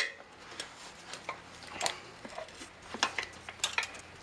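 Tire irons clicking and knocking against a motorcycle wheel rim as the tire bead is pried off. There is a sharp click at the start and scattered knocks after.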